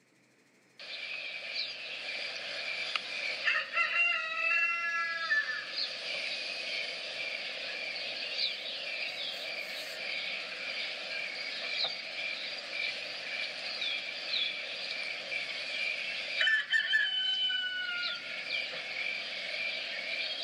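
Rooster crowing twice, a long call about four seconds in and another about sixteen seconds in, over a steady high drone and scattered small bird chirps.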